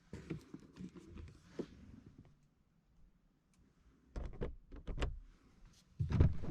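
Clicks and thumps of a car's doors and interior fittings being handled: scattered knocks, then a few sharp clicks, and a louder thud near the end.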